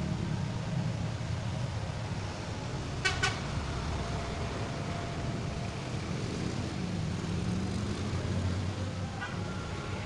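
Steady low rumble of road traffic, with a vehicle horn giving a short double toot about three seconds in.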